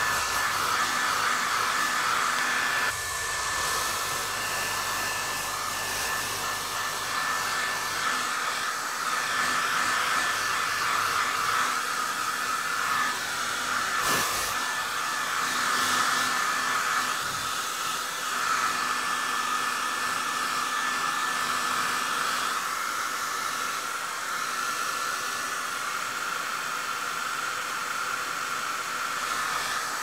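Hair dryer running steadily: an even rush of blown air, strongest in the upper middle, with a thin steady tone above it. One brief click about halfway through.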